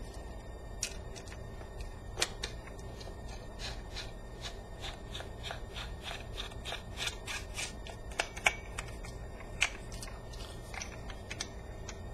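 Hands handling camera gear: scattered small clicks and rustles, with a run of light clicks about three a second through the middle and a few louder clicks near the end, over a faint low hum.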